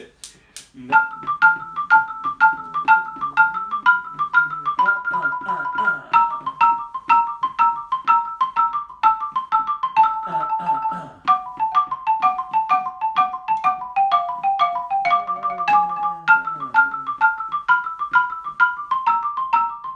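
Xylophone played with mallets: a syncopated eighth-note exercise in F starting about a second in, notes rocking quickly between two pitches, dipping lower in the middle and climbing back near the end.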